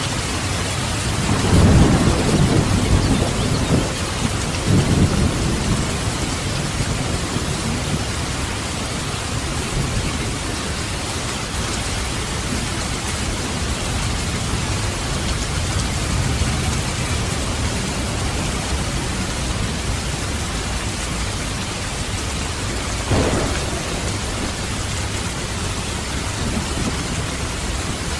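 Steady rain during a thunderstorm. A low roll of thunder swells about two seconds in and fades over the next few seconds, and a short, louder burst comes near the end.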